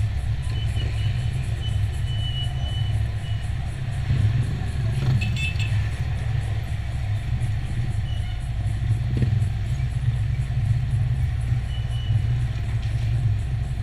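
Steady low rumble of a car engine idling while the car stands still, heard from a camera mounted on its hood. Light street traffic passes around it.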